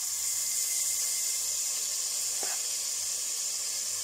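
Wet, freshly washed rice and moong dal sizzling steadily as they hit hot ghee in a pressure cooker, with a single light knock about two and a half seconds in.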